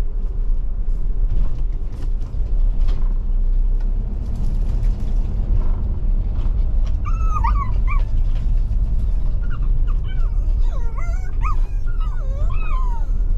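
A dog whining and yipping in many short whimpers that rise and fall in pitch, starting about halfway through, over a steady low rumble of wind on the microphone.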